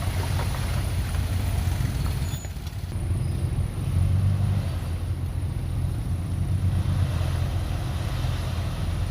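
Diesel engine of heavy earthmoving machinery (bulldozer or dump truck) running with a steady low rumble. It eases off briefly about two and a half seconds in and picks up again, louder, around four seconds.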